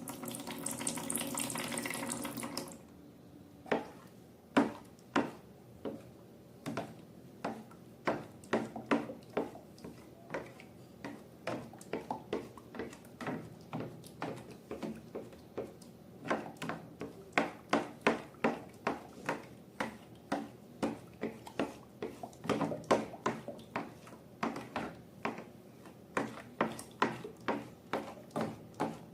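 Liquid pouring for about two seconds, then slime being squeezed and kneaded by hand: a long run of sharp, sticky clicks and pops, sparse at first and coming faster and closer together after the halfway point.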